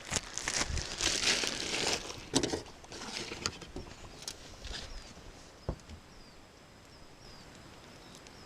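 Plastic lure packaging crinkling and rustling as a soft-plastic worm is handled, with a few small clicks. The crinkling dies away after about three seconds, leaving a few faint high chirps.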